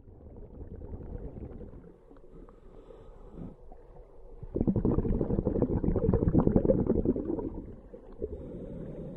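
Scuba diver breathing through a regulator underwater: a softer breath near the start, then, about four and a half seconds in, a louder exhale of gurgling bubbles lasting about three seconds.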